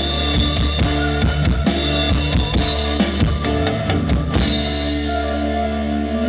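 Music with a drum kit and heavy, deep bass, played loud through a large PA sound system at an SPL contest.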